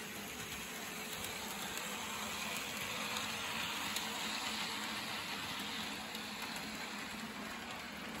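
HO-scale Life-Like ATSF Dockside 0-4-0 model locomotive running along the track with its boxcars, a steady whir and rolling rattle. It grows louder about three to five seconds in as it passes close by, over a steady hiss.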